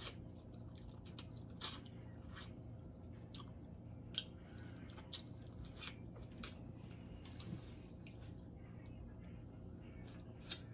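Faint wet chewing and biting on corn on the cob, with scattered small sharp mouth clicks at irregular intervals.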